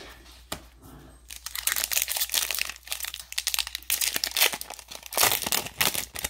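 A trading-card pack's plastic wrapper crinkling and tearing as it is opened, in dense bursts from about a second in.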